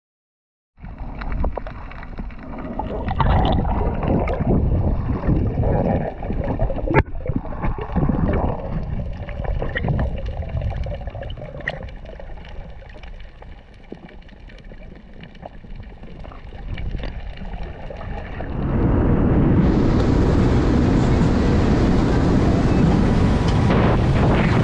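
Underwater sound of water moving and gurgling, with scattered sharp clicks. About three-quarters of the way through it switches to a motorboat running fast: steady engine, hull and water noise with wind on the microphone.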